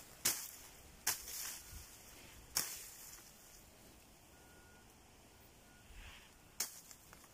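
Leaves and branches of dense brush swishing and snapping as someone pushes through on foot: four sharp rustles, the loudest three in the first few seconds and one more near the end.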